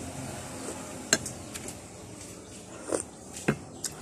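Several short, sharp clicks of utensils against dishes during a meal. The loudest is about a second in, and three more come close together near the end.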